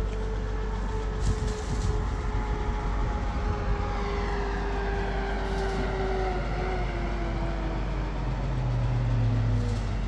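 Road vehicle running with a steady low rumble and a whine that slowly drops in pitch over several seconds. A deeper hum swells near the end.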